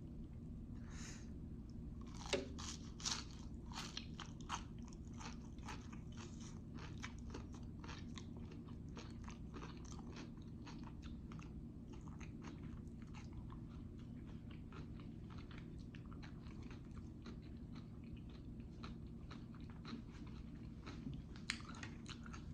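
Close-mic'd chewing and biting of jalapeño poppers: a run of short wet clicks and smacks, with a few louder bites about two to five seconds in.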